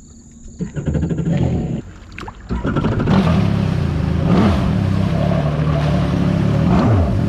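Stand-up jet ski engine speeding up and then running hard at speed, with the hiss of water spray. It comes in about half a second in, eases off briefly near two seconds, then runs loud and steady from about two and a half seconds on.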